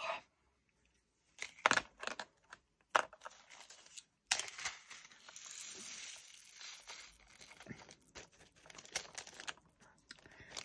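Small clear plastic bag of diamond painting drills crinkling and rustling as it is handled and emptied into a small plastic storage bottle, with scattered light plastic clicks. The rustle is steadiest in the middle, with sharper clicks before and after.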